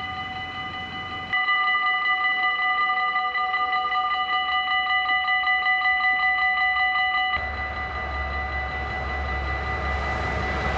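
Dutch level-crossing warning bells ringing steadily, the sound changing abruptly about a second in and again about seven seconds in. In the last few seconds the rumble of an approaching train rises under the bells.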